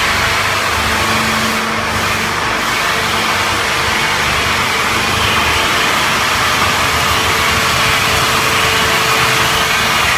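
SB-4V-550 four-sided log-squaring machine running: a steady, loud machine noise with a faint steady hum in it.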